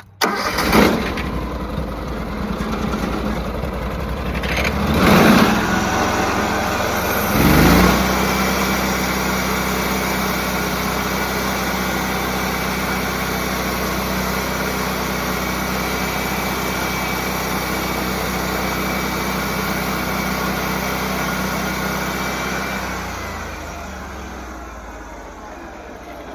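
Sawmill engine coming up to speed with three swells in the first eight seconds, then running steadily under load as the blade cuts the top slab off a black walnut log. It eases down a few seconds before the end as the cut finishes.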